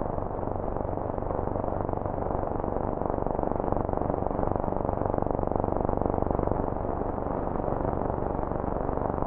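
Steady, wind-like rushing noise with no distinct notes, part of an electronic film score.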